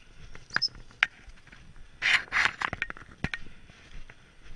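Scattered short clicks and scrapes of footsteps and rustling vegetation while walking along a hedge-side field edge, with a louder rustling burst about two seconds in.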